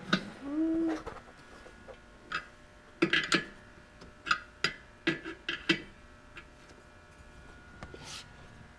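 Scattered sharp metallic clicks and clinks of hand tools working at seized fuel-line quick-connect fittings, in small irregular clusters, with a brief pitched squeak just under a second in.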